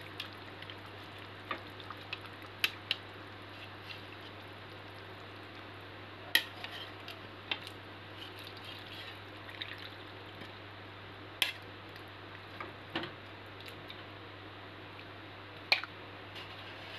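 A spoon knocking and scraping against a bowl as pieces of boiled chicken are dropped into a pan of sauce: scattered clinks and soft wet plops, about a dozen, over a steady low hum.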